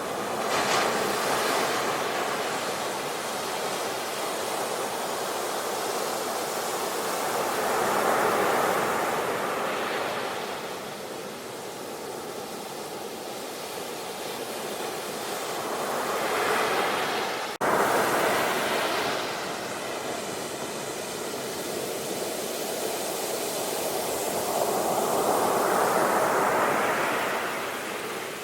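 Sea waves surging and washing back, the noise swelling and ebbing several times. It breaks off and resumes abruptly about two-thirds through.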